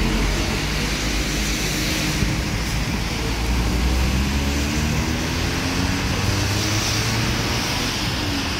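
Road traffic in heavy rain: vehicle engines running past and tyres swishing through standing water, over a steady hiss of rain and wet road.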